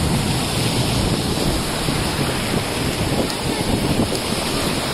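Small waves washing in over a sandy beach, with wind buffeting the microphone in a steady low rumble and indistinct voices of a crowd of beachgoers.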